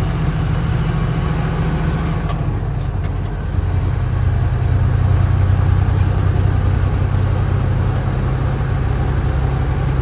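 Semi truck's engine running steadily while driving, heard from inside the cab. A little over two seconds in the drone dips briefly with a couple of clicks, then comes back stronger and steady from about four seconds in.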